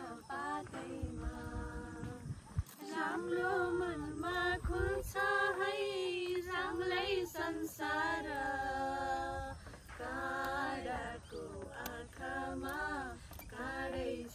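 A small group of women singing together without accompaniment, holding long, wavering notes in phrases with short pauses between them.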